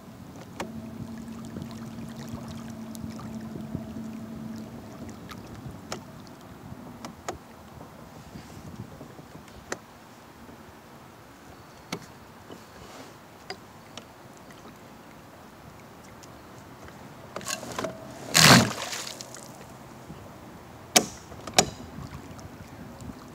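A 17-pound-thrust electric trolling motor hums steadily while pushing a kayak along, with a clear steady tone in the first few seconds. Scattered light clicks run through it. About eighteen seconds in there is a loud short knock, and two sharp clicks follow a few seconds later.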